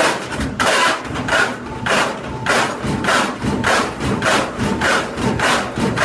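Top-loading washing machine in its spin cycle with an unbalanced load: the tub is thrown off its axis and bangs against the inside of the cabinet, a loud pounding about twice a second.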